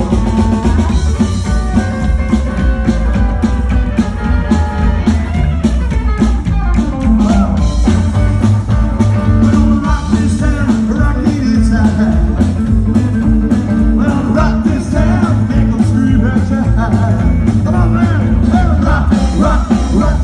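Live rockabilly band playing loud: a hollow-body electric guitar, a slapped upright bass and a drum kit keeping a steady, driving beat.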